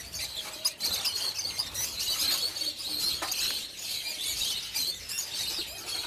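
Dense, continuous chirping and chattering of a large number of caged lovebirds and other small cage birds.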